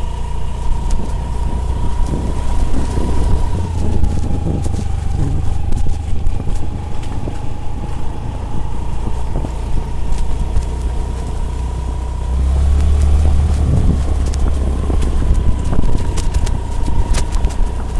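Honda Activa 125 scooter's single-cylinder four-stroke engine running under way on a rough dirt trail, with a low rumble that grows louder about twelve seconds in and a steady whine that shifts slightly in pitch. Scattered knocks and rattles come from the bumpy ground.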